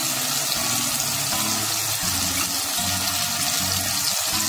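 Raw prawns sizzling in hot oil among brinjal, onion and tomato in a pan, a steady hiss as the wet prawns first hit the heat.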